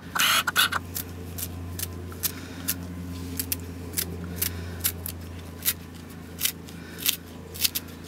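Kitchen scissors snipping through a rolled bundle of ramson (wild garlic) leaves: a run of short, crisp cuts, roughly two a second and a little uneven, over a steady low hum.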